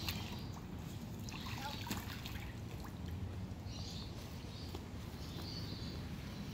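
Light water trickling and lapping at a swimming pool's edge over a steady low rumble, with a few faint bird chirps.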